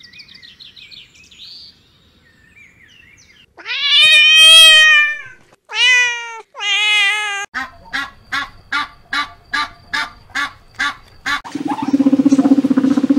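A sequence of animal calls: three loud, drawn-out cat meows, followed by about a dozen short, evenly spaced calls at about three a second, then a low, rough, held call near the end. Faint chirps come at the start.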